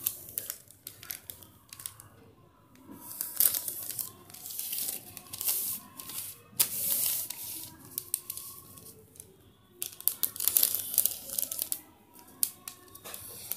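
Pen scratching across a large sheet of pattern paper in long strokes as straight lines are ruled along a tape measure, with the paper rustling and crinkling between strokes.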